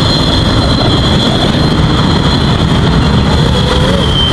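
A 6-inch FPV freestyle quadcopter in flight: its T-Motor Velox 2207 motors and Gemfan Hurricane 6045 propellers give a steady high-pitched whine over a low rumble. The whine dips slightly in pitch near the end.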